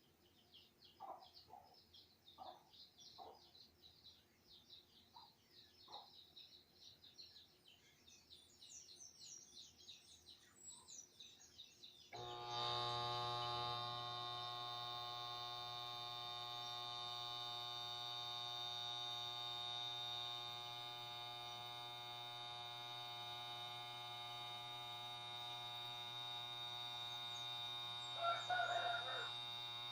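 Faint birds chirping, then about twelve seconds in a steady electrical hum starts abruptly and holds: a refrigerator compressor motor humming without starting, which the uploader puts down to a shorted winding or a worn bushing in the motor. A brief louder noise comes near the end.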